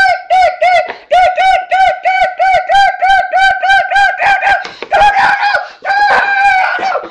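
A child's high-pitched falsetto voice squealing a rapid run of short repeated syllables, about four a second, then breaking into longer, louder screams about four seconds in.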